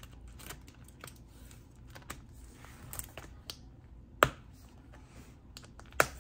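Light clicks and taps of small items being handled on a tabletop, with two sharp clicks, one about four seconds in and one near the end.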